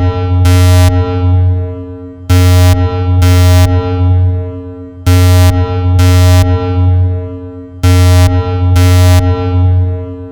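Synthesized nuclear alarm sound effect: a low, harsh electronic tone of steady pitch sounded in pairs of short blasts. The pairs repeat just under every three seconds, and each pair trails off in a long echo.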